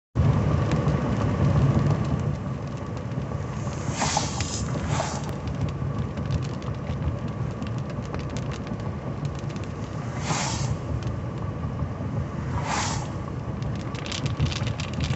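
Cabin sound of a 1985 Cadillac Cimarron driving on a wet road in rain: a steady low rumble of engine and tyres. Rain ticks on the windshield, thickening near the end, and a few brief swishes come through.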